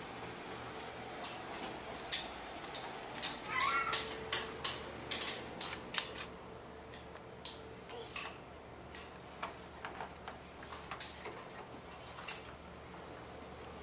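A run of light clicks and knocks, thickest in the first half, with a brief high squeak rising in pitch about four seconds in.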